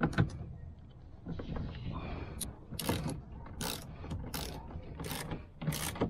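Hand ratchet with an extension and Torx bit tightening a seatbelt anchor bolt: a knock at the very start, then about five short bursts of pawl clicking, one on each back-swing, in the second half.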